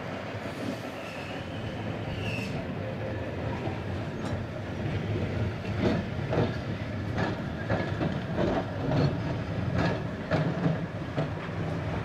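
Vintage electric street trams on street track: steel wheels rumble and clack over the rail joints, with a run of sharp clicks from about four seconds in as a tram comes past close by. Passing car traffic can be heard too.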